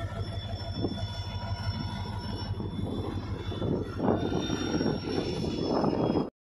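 Indian Railways diesel locomotive hauling a goods train past at slow speed: a steady engine drone with steel wheels rumbling on the rails and a thin high squeal over it. The sound gets a little louder about four seconds in as the wagons and brake van roll by, then cuts off abruptly just before the end.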